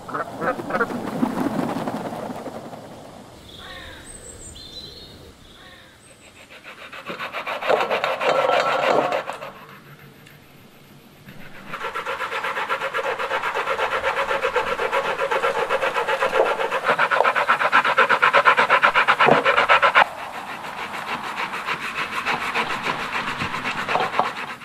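Fresh coconut flesh being grated on a metal box grater into a stainless steel bowl: rapid, even scraping strokes. They come in shorter spells in the first half, then run on steadily and drop in level for the last few seconds.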